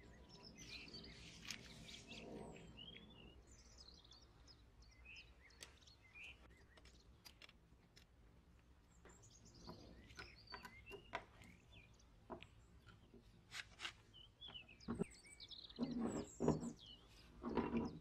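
Small birds chirping in the background throughout, with a few sharp clicks and knocks from small metal parts being handled, loudest in the last few seconds.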